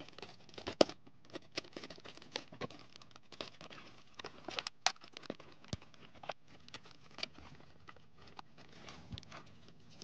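Clear plastic blister packaging being cut with scissors and pulled apart by hand, giving irregular crinkles and sharp plastic clicks as the small game box is taken out.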